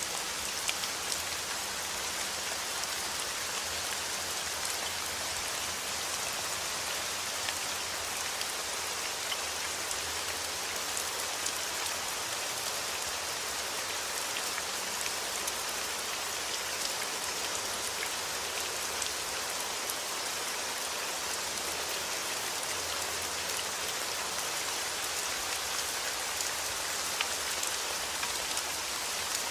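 Steady rain falling on a surface, an even hiss with scattered drop ticks throughout.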